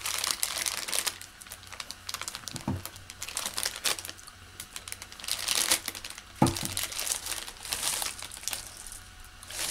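Plastic candy wrapper crinkling and rustling in irregular spurts as a bag of candy is torn open and handled, with a couple of soft thuds.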